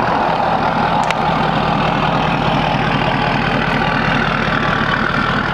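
Motor vehicle engine idling steadily, a low even pulsing rumble, with a faint click about a second in.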